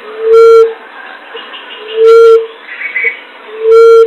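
Common emerald dove (punai tanah) lure call: three low, steady hooting notes, each about half a second long and spaced under two seconds apart, so loud they distort.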